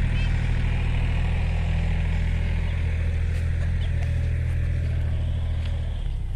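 Kubota tractor's diesel engine running at a steady speed.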